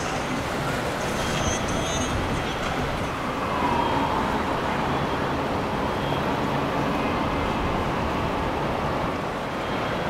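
Steady engine rumble with a faint whine near the middle.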